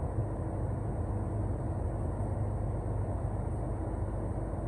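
Paint booth ventilation running: a steady low rumble with a faint hiss over it.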